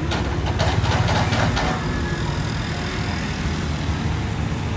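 Excavator engine running steadily, with a burst of clanking and rattling in the first two seconds.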